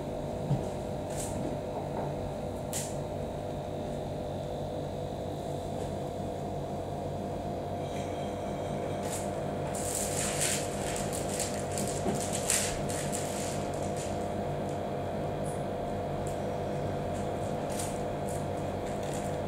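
Steady hum of a small room, with scattered soft rustles and light taps that come most often about ten to thirteen seconds in, as hands and knees shift over a tabletop.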